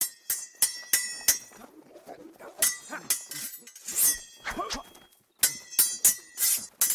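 Sword blades clashing again and again in a duel: quick irregular runs of sharp metallic clinks that ring on briefly, with a short pause about five seconds in.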